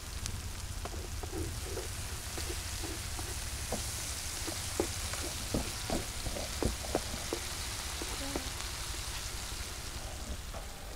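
Spice paste sizzling in a metal frying pan while a wooden spatula stirs it, with a run of light knocks and scrapes of the spatula against the pan in the middle.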